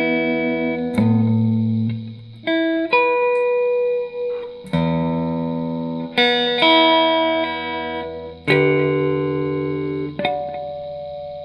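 Electric guitar through effects playing a chord progression, each chord struck and left to ring out, with a new chord every second or two.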